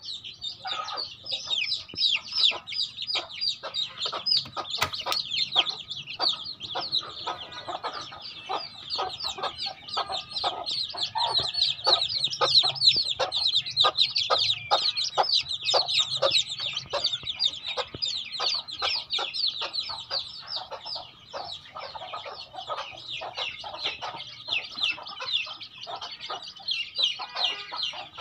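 A flock of domestic chickens, native kampung and Siamese, calling without a break. Chicks keep up a constant stream of high, short, falling peeps, several a second, while hens cluck lower beneath them.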